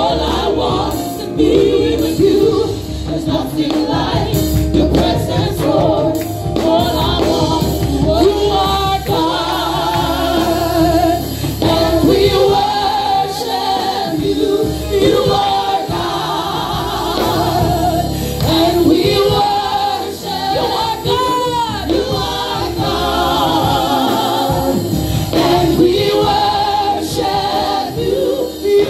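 Live gospel worship song sung by a small group of mostly women singers through microphones, with a steady instrumental backing. Voices hold long sung lines with a few climbing and falling vocal runs.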